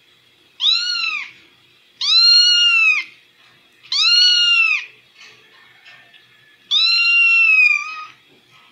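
Kitten meowing four times from a video playing on a phone. Each meow is high-pitched and rises then falls in pitch, and the last is the longest.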